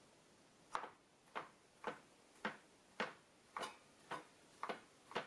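Chef's knife slicing through salt pork and knocking on a plastic cutting board, about nine even chops at roughly two a second.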